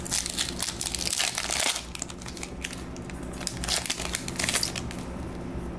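Plastic wrapper of a Topps Star Wars trading card pack crinkling as the pack is opened by hand. The crinkling comes in repeated bursts, busiest in the first two seconds, with shorter ones later.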